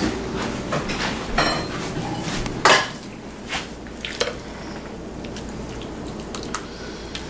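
Dishes and cutlery clattering as bowls and spoons knock together while chilli is served up, a scatter of clinks and knocks with the loudest about two and a half seconds in. A low background hum drops away at about the same moment.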